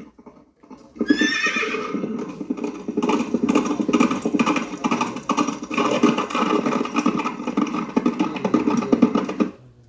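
A horse whinnies about a second in, a high call falling in pitch. A fast, dense clatter of beats follows for several seconds and cuts off near the end.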